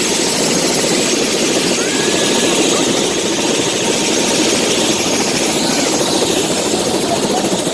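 Helicopter running close by: a loud, steady blend of rotor chop and turbine engine noise.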